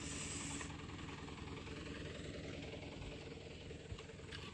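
Dump truck's diesel engine idling with a steady, pulsing rumble. A short hiss sounds at the very start.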